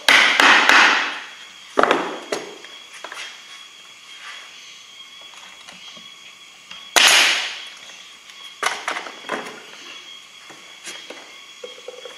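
Pneumatic nail gun firing nails into wooden hive parts: three loud bangs, at the start, about two seconds in and about seven seconds in, each trailing off over about a second. Lighter knocks of wood follow.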